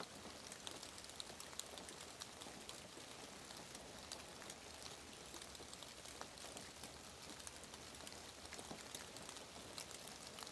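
Steady, faint rainfall with many separate raindrops ticking.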